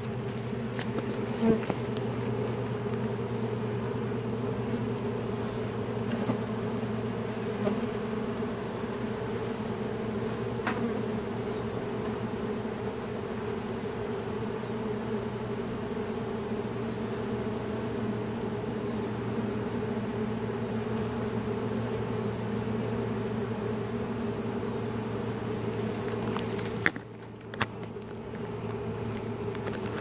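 Steady buzzing hum of a honeybee swarm close up, thousands of bees moving into a wooden nuc box as their new hive. The hum dips briefly near the end, then resumes.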